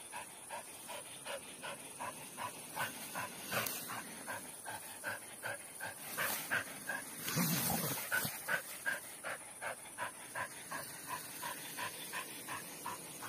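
A small dog panting in a steady rhythm, about three breaths a second. A louder rustling burst comes about seven seconds in.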